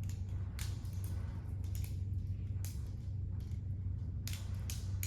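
Corvus balisong (butterfly knife) being flipped: a quick, irregular run of sharp clicks and clacks from the handles and blade, several a second, over a steady low hum.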